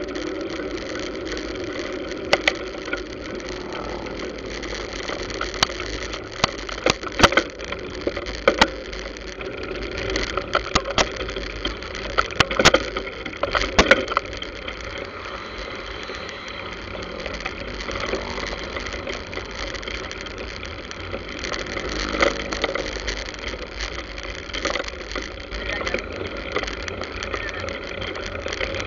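Road traffic of motor scooters and cars running close by, a steady mixed noise, with a run of sharp knocks and clatters from about two to fourteen seconds in.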